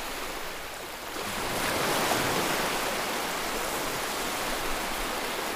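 Steady rush of ocean surf, swelling about two seconds in and easing off toward the end.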